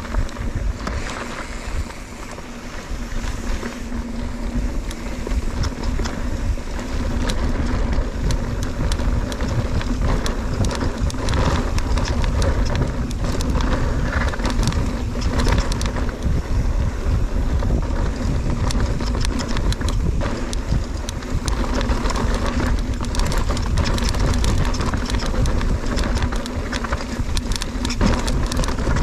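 Mountain bike running fast down a dirt trail: steady rumble of tyres over the ground with frequent clicks and rattles from the bike over rough terrain, and wind buffeting the microphone throughout.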